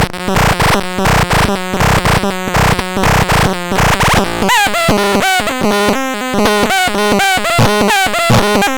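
Melodixon electronic instrument sounding rapid, buzzy pulsing tones. About halfway through it changes to quick bleeping notes that glide up and down in pitch.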